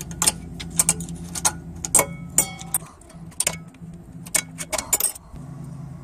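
Thin steel brake-pad abutment clips being pried and worked off a caliper bracket with a metal pick: a quick run of sharp metallic clicks and clinks, one ringing briefly about two and a half seconds in.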